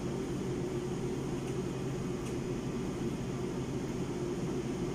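Steady low mechanical hum of room background noise, even throughout, with no speech.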